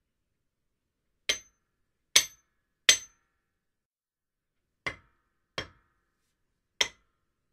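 Hammer striking cement: six sharp single blows, in two groups of three, with silence between them.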